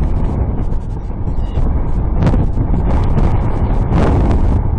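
Strong wind buffeting the microphone of the ground-station recorder: a steady low rumble that swells into louder gusts about two seconds in and again about four seconds in.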